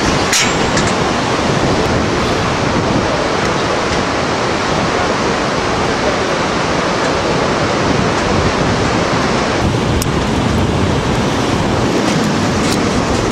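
Steady roar of white-water river rapids far below, mixed with wind on the microphone, with a few light clicks.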